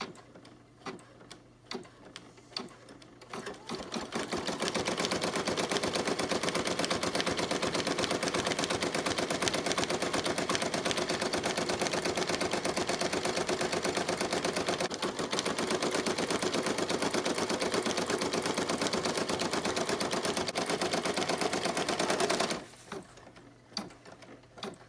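Home embroidery machine sewing an applique tack-down stitch. A few scattered clicks come first. About four seconds in, the needle starts up and runs fast and steady for roughly eighteen seconds, then stops abruptly, and a few more clicks follow.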